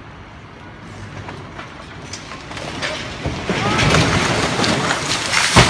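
A demolished building's masonry wall collapsing: a rumble and clatter of crumbling brick and concrete build up from about three seconds in, ending in a loud crash near the end.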